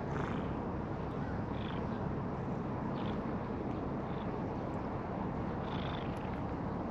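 Calico cat purring steadily while being patted on the lower back, with a few faint brief higher sounds over the purr.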